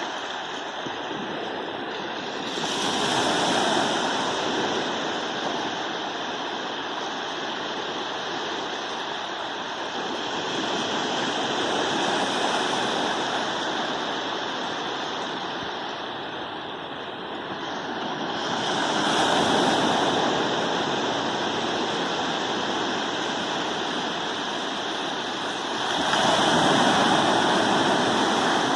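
Ocean surf on a beach: a steady wash of waves with a louder breaker rolling in every seven to eight seconds, four in all.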